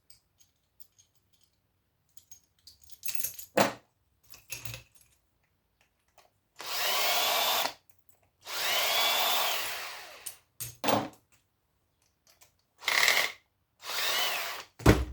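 Drill running in four short bursts, whining up and winding down, as it tries to back screws out of a metal casing with a bit that isn't gripping well. Clicks and handling knocks of metal parts come between the runs, with a sharp knock near the end.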